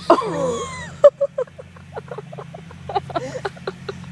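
Boys yelling excitedly with overlapping voices, then short bursts of laughter, over a steady low hum.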